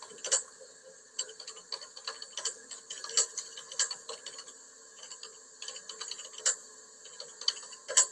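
Typing on a computer keyboard: quick, irregular key clicks as a sentence is typed.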